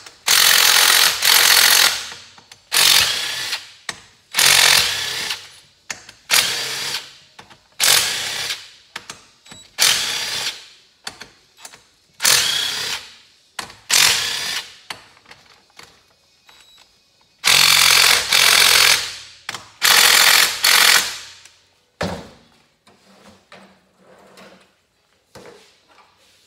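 DeWalt cordless impact driver loosening and spinning out cylinder-head bolts: about a dozen short hammering bursts, each around a second long, with brief pauses between them. After about 22 seconds only faint knocks of metal parts being handled remain.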